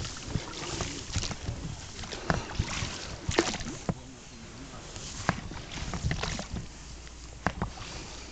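An inflatable boat being rowed: oar strokes in the water with irregular small knocks and clicks from the oars.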